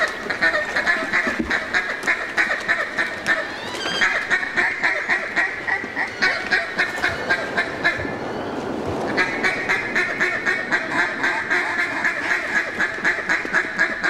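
Mallard duck call blown close by, giving rapid, rhythmic hen quacks at about four a second, with a short break about eight seconds in.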